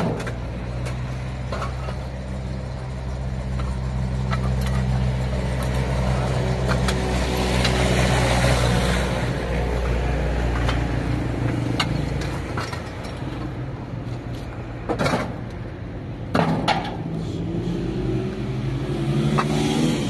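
A motor vehicle's engine running steadily, growing louder towards the middle and easing off again, with a couple of sharp knocks near the end.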